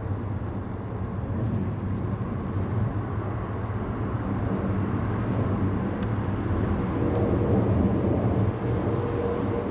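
Steady low rumble of distant vehicle engine noise, swelling a little about seven seconds in, with a faint steady hum joining near the end.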